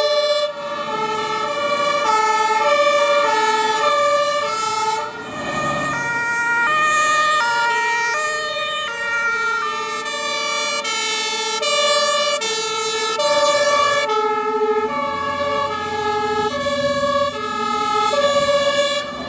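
Several fire engines' German two-tone sirens (Martinshorn) sounding together, each stepping back and forth between its two notes, out of step with one another, as the vehicles drive off in a column.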